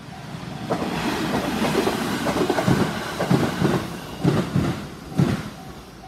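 A JR Central limited express train passes over the level crossing, rushing past for about five seconds with a run of heavy wheel clacks over the rail joints, many coming in pairs. The crossing's warning bell rings in a steady repeating beat at the start and again as the train's noise dies away near the end.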